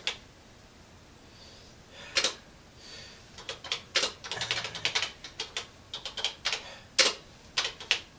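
Keys being typed on a TRS-80 Color Computer 2 keyboard: a single keystroke about two seconds in, then a run of irregular clacks from about three and a half seconds on.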